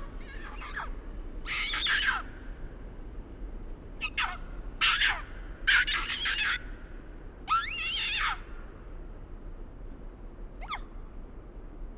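Baby monkey screaming in a string of shrill, high-pitched calls, each sliding down in pitch at its end, about six calls in all with a short faint one near the end.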